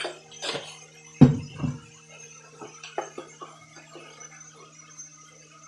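A few light knocks and clicks from handling a plastic spice jar and kitchen utensils, the loudest about a second in, over soft background music with steady held notes.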